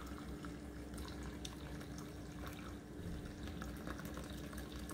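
Coffee pouring in a thin stream into a ceramic mug, a faint steady trickle with small drips as the mug fills, over a steady hum.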